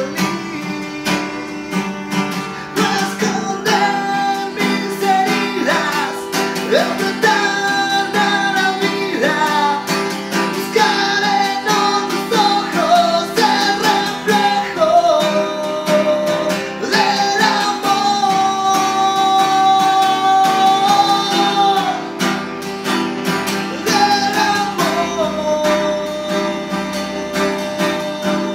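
A man singing solo to his own strummed acoustic guitar, the sung melody over steady chords, with one long held note about two-thirds of the way through.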